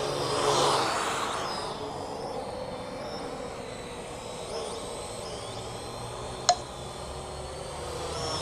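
Parrot AR.Drone 2.0 quadcopter in flight, its four electric motors and propellers making a steady whine that swells louder about half a second in and again near the end. A single sharp click about six and a half seconds in.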